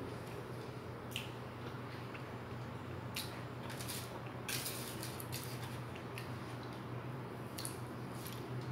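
Close-up eating sounds: soft chewing of cheesecake with a few short scrapes and clicks of a spoon on a paper plate, over a steady low hum.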